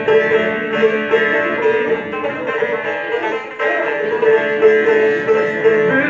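Bağlama (Turkish long-necked lute) playing an instrumental semah melody: quick plucked notes over a steady ringing note.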